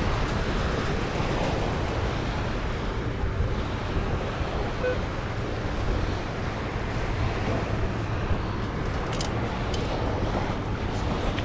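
Ocean surf washing steadily on a beach, with wind rumbling on the microphone.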